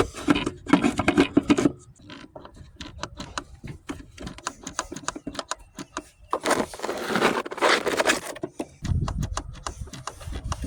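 Hands working on a diesel fuel filter housing: a steady run of small clicks and knocks, with two louder spells of scraping, one at the start and one about six and a half seconds in.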